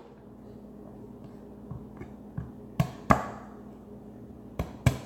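Knife chopping garlic on a cutting board: a few sharp knocks, the loudest coming in two quick pairs in the second half.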